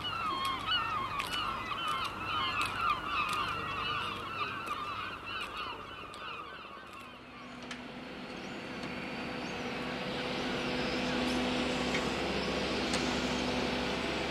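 A flock of geese honking, many overlapping calls that fade away over the first six seconds. Then a steady engine drone, likely a boat's engine, builds up and holds.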